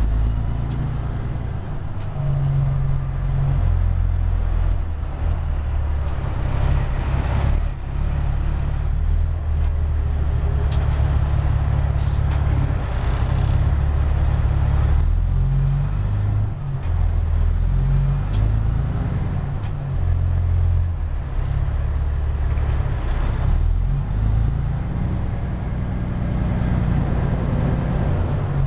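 Caterpillar C15 inline-six diesel of a Peterbilt 379 heard from inside the cab, pulling the truck through the low gears of an 18-speed transmission in slow traffic. The engine note rises and drops in steps as it revs up and is shifted, with short dips between pulls.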